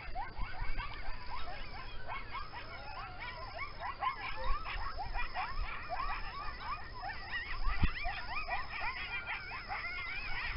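A pack of coyotes calling together: many short, overlapping yips and wavering howls that rise and fall in pitch, kept up without a break.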